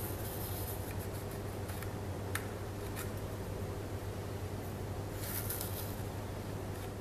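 Pencil scratching marking lines on a dark wood blank, faint, over a steady low hum, with a few light taps.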